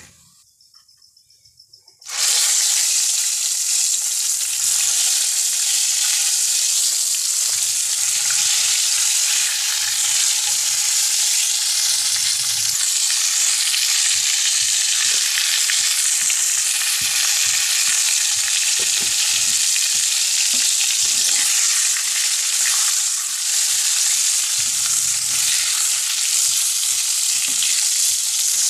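Whole small eggplants (baingan), their skins slit, frying in hot oil in a pan: a loud, steady sizzle that starts abruptly about two seconds in, with the spatula stirring them now and then.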